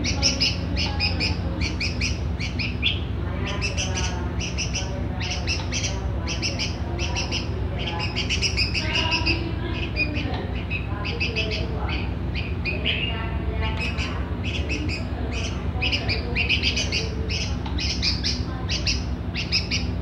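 Young red-vented bulbul giving short, high begging chirps in quick runs, several a second with brief pauses, as it begs to be hand-fed. A steady low hum lies underneath.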